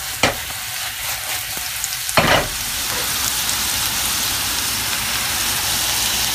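Cubed potatoes frying in shallow oil in a cast iron sauté pan, a steady sizzle that grows louder about two and a half seconds in. A sharp click comes just after the start, and a short knock just before the sizzle swells.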